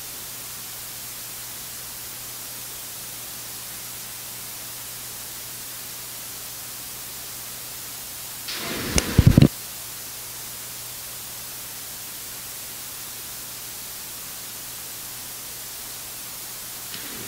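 Steady hiss of the sound system's noise floor with a faint low hum, broken about nine seconds in by one brief, loud burst of knocking noise lasting about a second.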